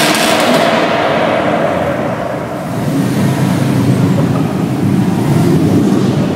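Subaru cars driving past inside a concrete parking garage: a close pass with a hiss that fades over the first two seconds, then the low rumble of another car's flat-four boxer engine building from about halfway.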